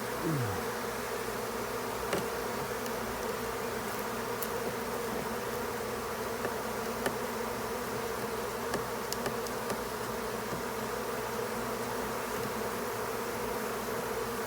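A mass of honeybees buzzing as a steady, dense hum. Just after the start one nearer buzz drops in pitch, and a few faint clicks come through.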